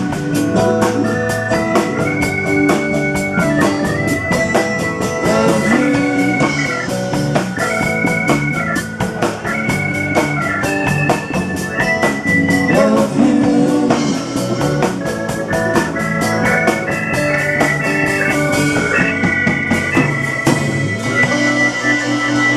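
A live band playing an instrumental passage: a keyboard melody in long held notes with an organ-like tone over a bass line and a steady drum beat.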